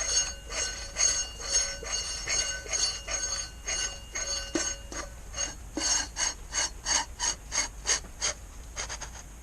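Hand ratchet wrench clicking in a steady rhythm, about two sharp metallic clicks a second. The clicks come a little faster in the second half and fade near the end.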